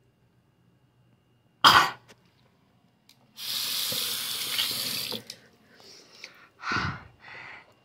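A short sharp cough, then about two seconds of water running from a tap, then another cough and a weaker throat-clearing near the end.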